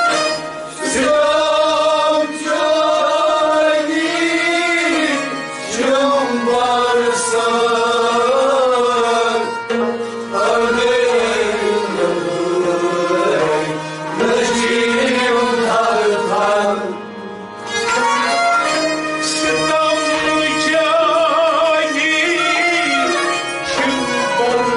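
Live performance of a kalam (devotional song) by a seated ensemble of harmonium and stringed instruments, including a rabab-type lute. The melody bends and wavers in phrases a few seconds long, with brief dips between them.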